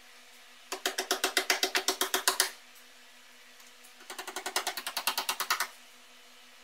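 Chipping hammer tapping rapidly on a freshly welded steel seam of a car's wheel arch, metal on metal, in two quick runs of about ten strikes a second, the second starting about four seconds in. A faint steady hum lies under it.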